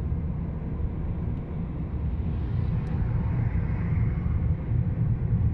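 Steady road noise inside a moving Hyundai Elantra's cabin at highway speed: a low rumble of tyres and engine, with a hiss that swells and fades a few seconds in.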